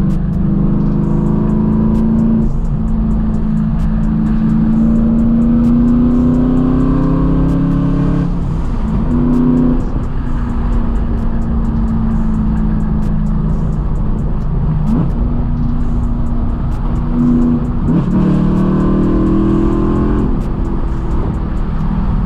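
Straight-piped BMW E92 M3's 4.0-litre V8 driving, its exhaust note rising in pitch under acceleration and dropping back at gear changes several times, with steadier stretches of cruising between.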